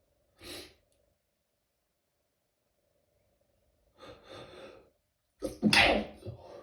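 A person stifling sneezes in a sneezing fit. There is a short muffled burst about half a second in, a breathy build-up around four seconds, then a stronger stifled sneeze, the loudest, at about five and a half seconds.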